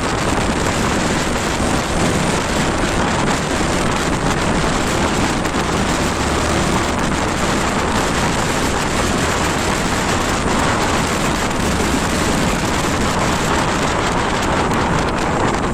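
Steady wind rush over the microphone of a motorcycle under way, with the bike's running and road noise underneath.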